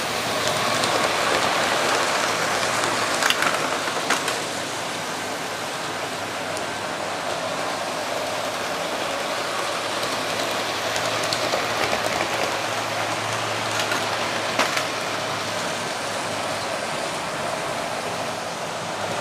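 Model trains running on the layout: a steady whirring rattle of small locomotive motors and wheels on the track, with a few sharp clicks.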